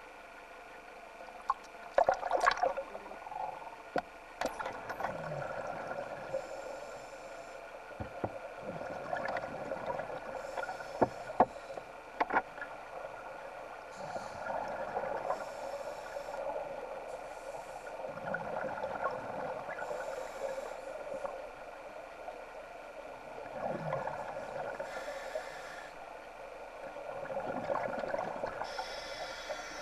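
Scuba breathing through a regulator, heard underwater: a rush of exhaled bubbles about every four seconds, with short high hisses between them and a few sharp knocks in the first dozen seconds.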